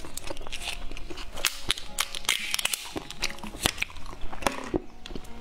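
Candy being crunched and chewed close to the microphone: many sharp, irregular cracks several times a second.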